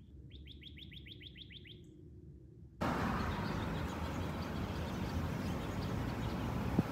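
A songbird sings a quick trill of about a dozen down-slurred notes. About three seconds in, a much louder steady rushing outdoor noise cuts in suddenly, with faint chirps still heard through it.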